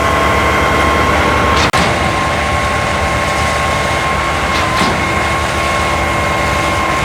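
Heavy diesel concrete machinery (concrete trucks and a concrete pump) running steadily under load, with a steady high-pitched whine over the engine noise. The sound drops out for a split second a little under two seconds in.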